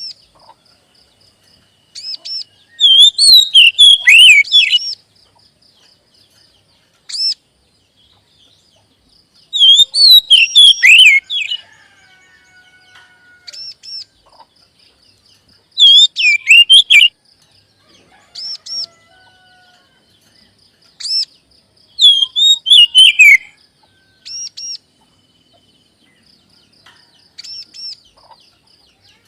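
Oriental magpie-robin song: loud phrases of rapid, sliding whistles and harsher notes about every six seconds, with short single whistled calls between. A faint, fast ticking trill runs steadily behind.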